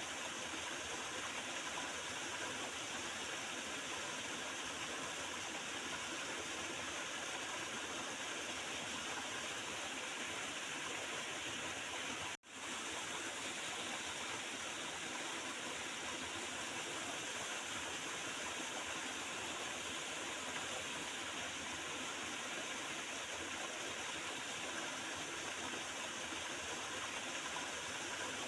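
Water of a small river gurgling steadily over stones. The sound cuts out for a split second about halfway through, then carries on as before.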